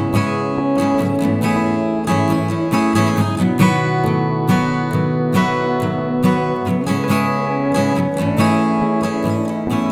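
Background music led by a strummed and plucked acoustic guitar, with a steady rhythm of picked notes.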